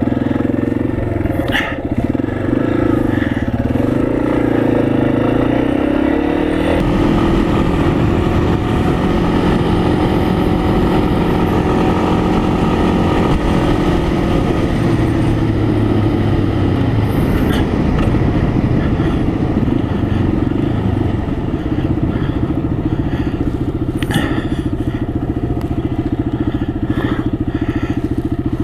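Engine of a vehicle running steadily under way, heard from on board. The engine note changes about six to seven seconds in, then holds steady.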